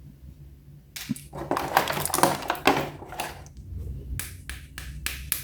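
Hands handling a plastic toy and its packaging: crinkling and rustling for about two seconds, then a few sharp plastic clicks.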